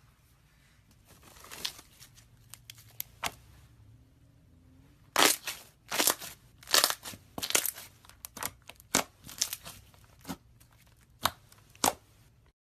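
Slime being handled, squeezed and stretched, giving off a quick irregular run of sharp pops and crackles. They start faint about a second in and turn loud and dense from about five seconds in.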